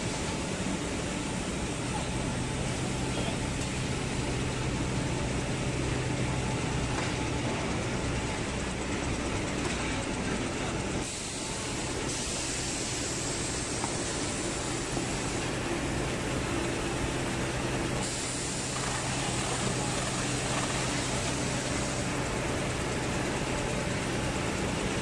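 Steady running noise of a jumbo-roll tissue production line's machinery, with a low steady hum underneath; the noise shifts abruptly a few times.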